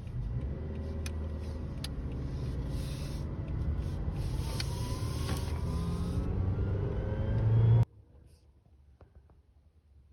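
Motor vehicle engine and road noise while driving, rising in pitch as it speeds up and slowly growing louder, then cut off abruptly about eight seconds in. Near silence follows.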